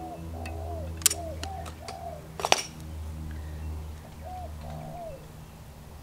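A bird calling outdoors in short arched notes, four in the first two seconds and two more about four and a half seconds in, over a steady low hum. Two sharp clicks, about one and two and a half seconds in and the second the loudest, from the caulking gun being worked.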